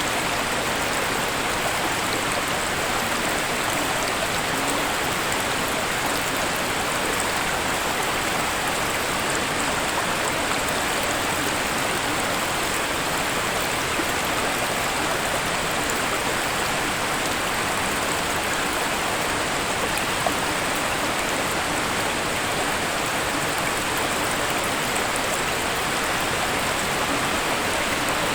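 Waterfall: a steady, unbroken rush of falling water with fine splashing.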